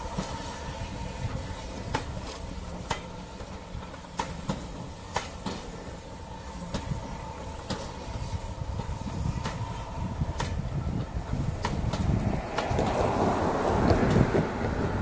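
Passenger train coaches rolling past, their wheels clicking irregularly over rail joints above a steady rumble. The rumble grows louder over the last few seconds.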